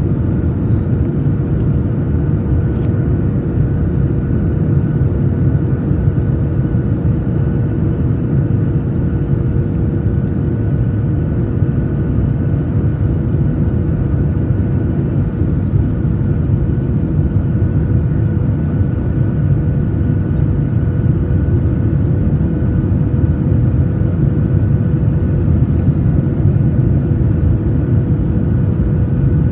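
Cabin noise of a Boeing 737-900ER airliner on approach: the steady rushing rumble of its engines and airflow heard through the fuselage, with a steady droning hum running through it.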